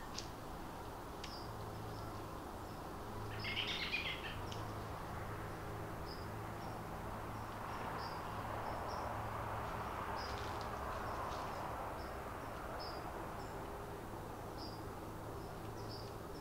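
Evening woodland ambience: short high chirps from birds or insects repeating every second or so, with a brief louder chittering bird call about four seconds in. A soft rushing swell builds and fades in the middle, over a steady low hum.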